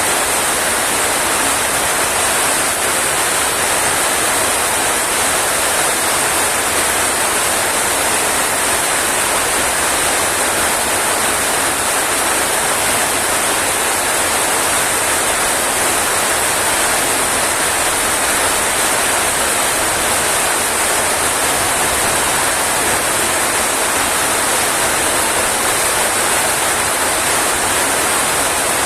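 Rain falling steadily: a loud, even hiss that stays unchanged throughout, with no breaks or separate drops standing out.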